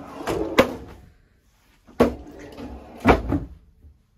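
A pull-out galley drawer on metal runners sliding open and shut, with sharp knocks as it reaches its stops, in two rounds.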